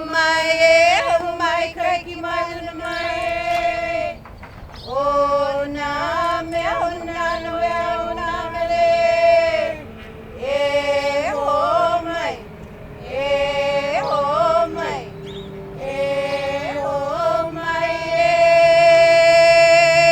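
A single voice chanting a Hawaiian oli (chant) in about five long phrases of mostly held notes with short pitch steps, with brief breaths between phrases.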